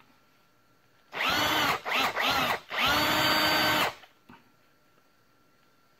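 Milwaukee 18V cordless drill/driver running unloaded, its motor whining in short trigger bursts that rise and fall in pitch, then holding a steady speed for about a second before stopping. It runs on its rebuilt NiCd battery pack.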